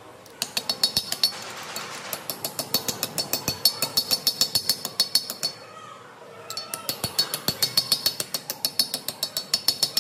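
Ball-peen hammer striking a thin steel strip on an anvil, rapid ringing metallic blows at about five or six a second, as the strip is shaped. The blows come in runs, with short breaks near the start and a little past the middle.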